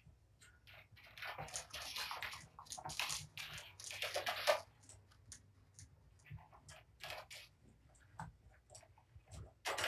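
Scratchy scrabbling and rustling from cats moving about and clawing, busiest in the first half, then scattered light clicks and taps.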